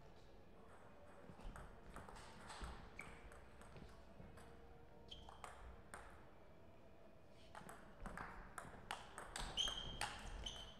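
Table tennis ball clicking off bats and the table in scattered strokes, with a quicker run of hits from about eight seconds in. A few short high squeaks sound among the hits.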